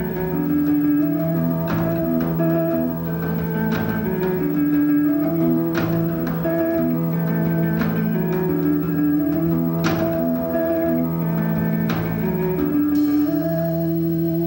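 Live rock band playing an instrumental passage: electric guitar repeating a melodic figure of held notes over the band, with a drum and cymbal accent about every two seconds.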